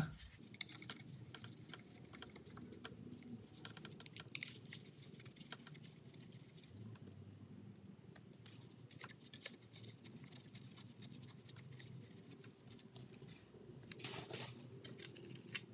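Faint, irregular small clicks and scrapes of bolts being put in to fasten a lawn mower's air filter base over its carburetor, with a slightly louder cluster near the end.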